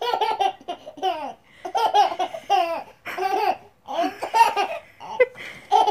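Baby laughing in a string of short bursts of giggles and belly laughs, each burst broken into quick pulses with brief pauses between.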